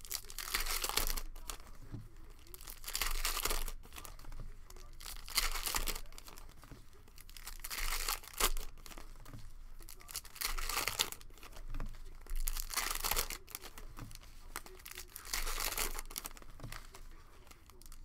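Plastic cello wrappers of basketball trading-card packs crinkling and tearing in the hands as the packs are opened, in irregular bursts.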